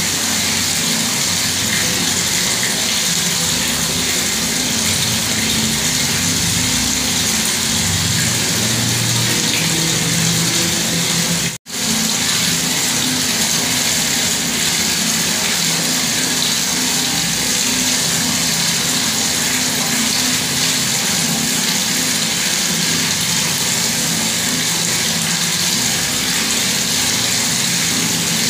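Bathroom water tap running, water pouring steadily. The sound cuts out for an instant about twelve seconds in.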